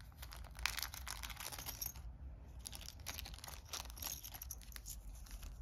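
A small clear plastic zip bag crinkling and rustling in the hands, with scattered faint ticks, as it is opened to take out the game coins inside.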